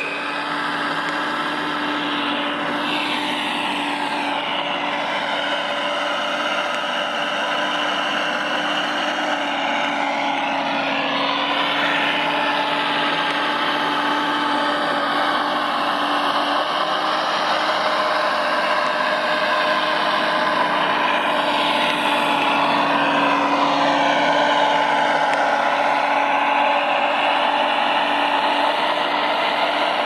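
Electric motors and hydraulic pump of radio-controlled construction models whining steadily, with some whines gliding up and down in pitch as the machines move.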